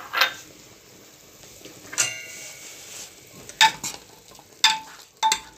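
Metal ladle stirring mutton in a pressure cooker of simmering water, knocking sharply against the pot four or five times near the end, over a soft steady hiss from the pot. A ringing clink about two seconds in.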